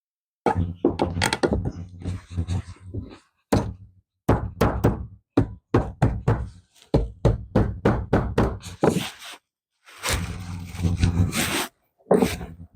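An irregular run of knocks and clunks, several a second, with a denser clatter about ten seconds in.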